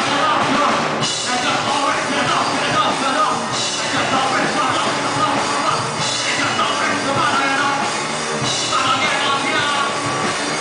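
A rock band playing live: electric guitars through Marshall amplifiers, bass and drums, loud and steady.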